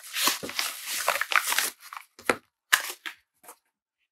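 Padded paper mailer and its paper wrapping crinkling and tearing as it is opened by gloved hands: dense rustling for the first couple of seconds, then a few short sharp crackles.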